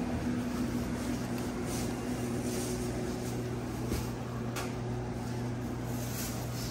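Steady low mechanical hum of running equipment, with one short knock about four seconds in.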